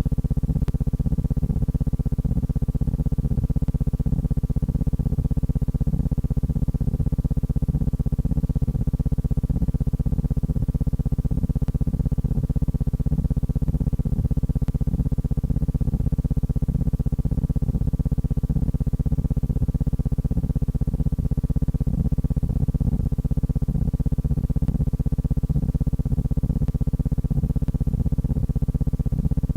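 Steady low-pitched hum with a fine rapid flutter, unchanging throughout.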